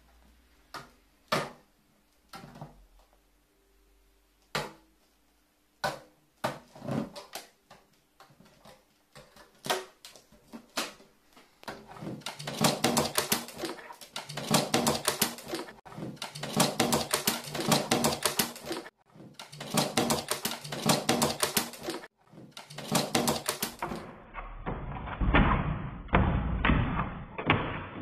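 Carrion crow pecking and knocking a metal drink can on a wooden tabletop. At first the taps come singly, a second or more apart; from about twelve seconds in they run together into rapid clattering bursts of pecks.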